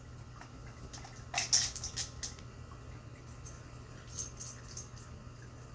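A cat at a plastic treat-tower puzzle feeder: a cluster of sharp clicks and rattles of kibble and hard plastic about a second and a half in, then a few lighter ticks around four seconds, over a steady low hum.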